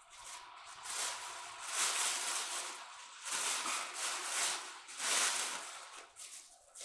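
Plastic grocery bag crinkling, dabbed against the ceiling again and again to stipple texture into fresh spackle, in irregular rustling pulses about once a second.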